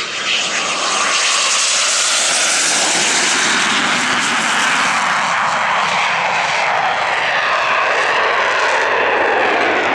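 Eurofighter Typhoon's twin EJ200 turbofan engines running at high power through a touch-and-go, a loud jet roar that builds in the first second as the fighter rolls and takes off again, then holds steady.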